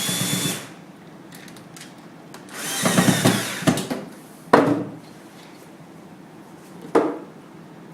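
Cordless drill-driver driving screws to fix an aluminium shutter rail to a wooden cabinet, in short bursts: a brief run at the start, a longer run of about a second around three seconds in, then two quick blips.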